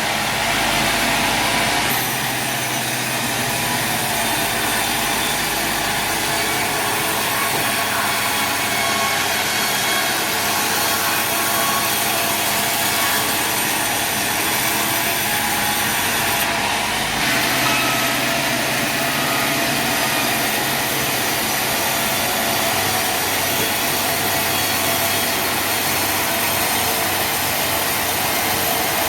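Sawmill machinery running steadily with a dense, continuous mechanical noise. The sound shifts about two seconds in and again a little past halfway, as the load or machine changes.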